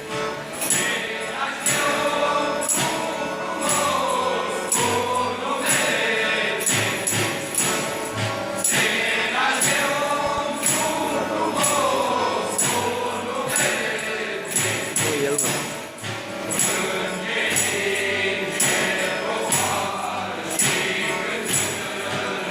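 A group of carolers singing a Romanian colindă together, with jingling percussion keeping a steady beat.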